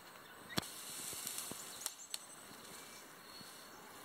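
Quiet outdoor forest ambience with a steady faint hiss and a few sharp clicks and knocks, the loudest about half a second in.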